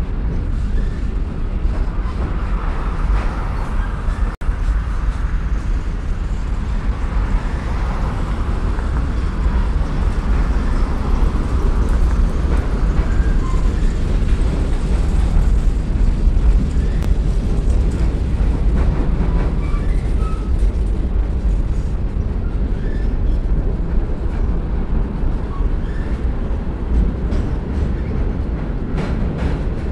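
Freight cars rolling slowly across a railroad bridge: a steady low rumble of steel wheels on the rails.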